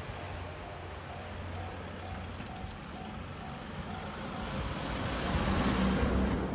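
Level crossing bell ringing about twice a second over a low steady hum, fading out after about four seconds. A truck then passes close by, its noise swelling towards the end.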